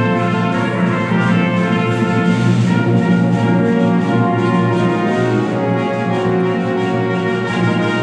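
Symphony orchestra with brass playing film music live: held full chords, the notes changing every second or so.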